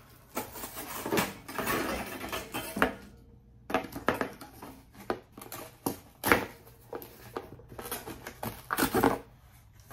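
Cardboard packaging rustling and scraping as inserts are pulled out of a box, followed by a series of sharp knocks and taps.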